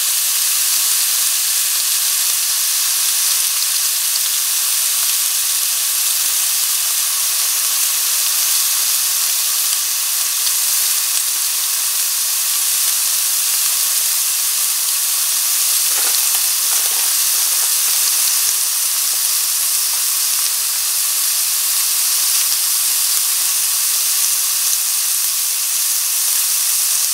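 Thin-sliced pork sizzling steadily in a dry nonstick frying pan, cooking without oil.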